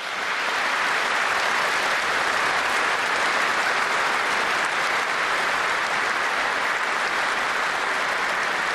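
Large audience applauding: dense, steady clapping that sets in at the start and holds without a break.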